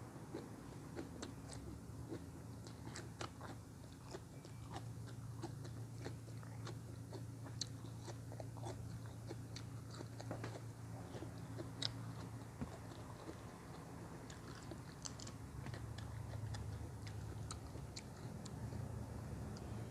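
A person chewing crisp raw vegetables close to the microphone, many short crunches, over a low steady hum.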